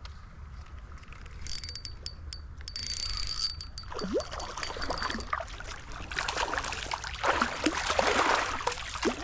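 Fishing tackle clicking with a thin ringing tone for about two seconds, then water splashing and sloshing, growing louder toward the end.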